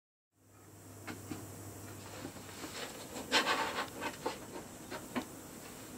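Wooden drawer box being handled and squeezed in a one-hand bar clamp: scattered light clicks and knocks, with a longer scraping rub of wood about three and a half seconds in.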